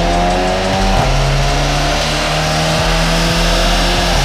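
Turbocharged 2.0 TSI four-cylinder of a VW Golf 7 GTI with an Akrapovic exhaust, revving on a dyno. The pitch climbs over the first second, then holds high and steady.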